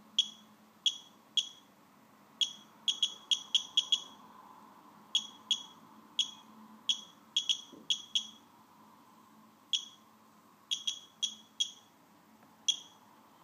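Radex Geiger counter giving short, high-pitched beeps at irregular, random intervals, about two a second on average and sometimes in quick bunches. Each beep is one detected count from a radium-dialled watch through its stainless steel case back, at a reading of about 0.35 microsieverts per hour; what gets through the back is almost certainly gamma.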